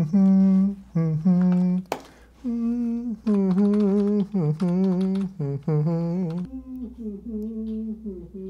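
A man humming a tune, holding notes that step up and down in pitch and growing quieter over the last couple of seconds. A single sharp click sounds about two seconds in.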